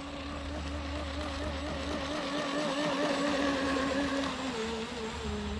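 Brushless electric motor of a Rage Supercat 700 BL RC catamaran whining as the boat runs across the water, its pitch wavering and growing louder toward the middle. Its pitch drops about four and a half seconds in as the throttle eases off.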